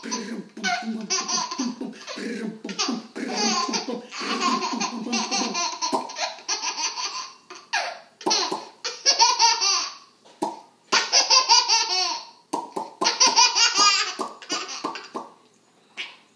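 A baby laughing hard in a string of quick, bubbling bouts of belly laughter, with short breaks between them.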